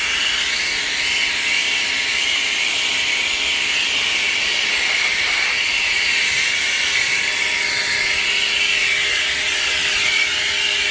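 Ryobi 1600 PSI electric pressure washer spraying steadily through its foam cannon attachment with the soap shut off, so only plain water comes out: a continuous hiss of the high-pressure water jet, with a faint steady hum underneath.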